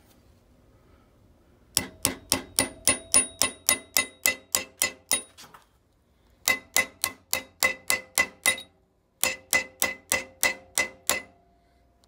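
A hammer tapping a metal punch to drive a stuck plunger out of a muzzleloader's percussion lock. It comes as three runs of quick taps, about four or five a second, and each tap has a metallic ring.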